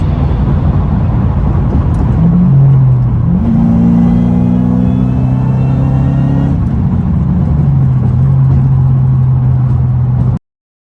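Roush Sport Mustang's engine running, revved up and held for a few seconds from about three and a half seconds in, then settling back to idle. The sound cuts off abruptly near the end.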